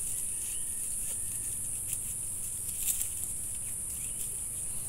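Steady, high-pitched chorus of insects in a salak garden under pine trees, with a few soft rustles and taps of hands tying string around a salak fruit stalk about two and three seconds in.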